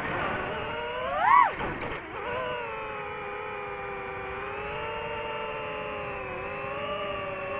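DJI FPV drone's motors and propellers whining, recorded by the drone's own camera. The pitch sweeps sharply up and back down about a second in, then holds a steadier, slightly wavering whine.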